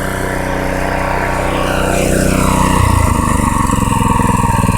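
Predator 212cc single-cylinder four-stroke engine, on freshly changed oil, running at speed; about two seconds in its pitch falls as it is throttled back, and it settles into a lower, lumpy idle.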